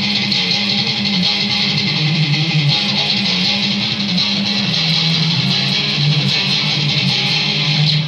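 Extended-range electric guitar played through an amplifier, a continuous run of notes and strums.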